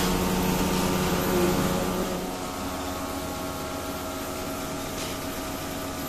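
Milking machine running with a steady mechanical hum; its lower note drops away about two seconds in.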